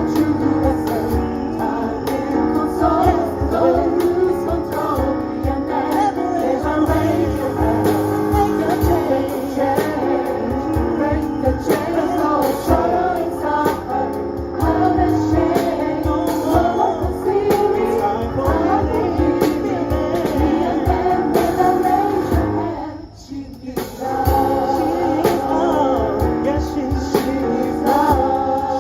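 Gospel choir singing with keyboard and percussion accompaniment over a steady beat. Late on, the music breaks off briefly, then comes back in.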